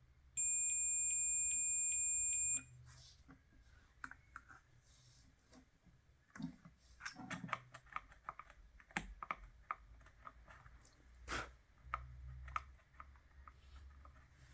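Multimeter continuity beeper sounding one steady high beep for about two seconds, the sign of a closed circuit between the probes. It is followed by a series of small clicks and taps of the test probes on the circuit board.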